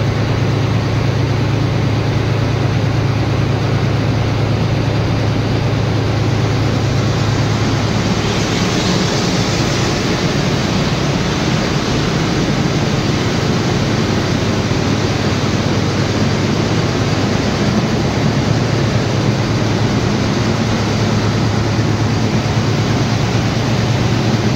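Diesel locomotive engine running steadily, a constant low hum under an even hiss, with no change in speed.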